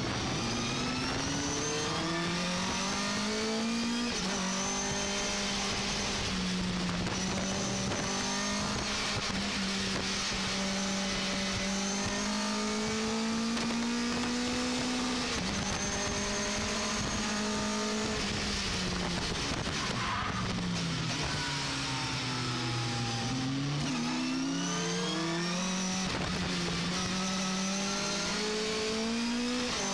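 Vauxhall XE four-cylinder race engine of a racing pickup truck, heard from inside the cabin, running hard under load. The revs climb through the gears at first, hold high, drop away for about six seconds past the middle as the truck slows, then climb again near the end.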